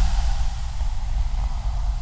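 Sea waves washing onto the shore: a steady rushing hiss over a deep rumble, the hiss of a spent wave easing off in the first moments.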